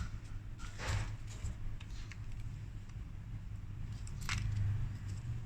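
Light metallic clicks and scrapes as a screwdriver drives the faceplate screws back into a mortise lock. Two louder scraping strokes come about a second in and near the end, over a steady low hum.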